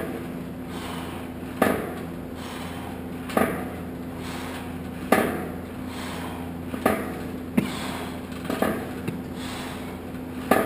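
A strength-training press machine knocking with each repetition: a sharp clank with a short ring about every second and three-quarters, seven times, over a steady low hum.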